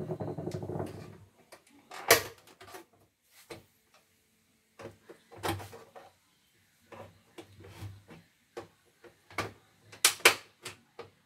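Plastic and metal knocks and clicks as a portable CNY embroidery machine is handled and turned over on a bench. A busy mechanical rattle fades out in the first second, then come single knocks at irregular intervals, with a sharp pair near the end.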